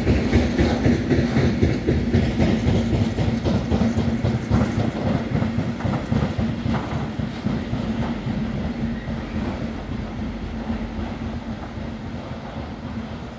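Freight train of tank wagons rolling through at speed: a steady rumble and low hum with the wheels clicking over rail joints. The sound fades over the last few seconds as the end of the train passes.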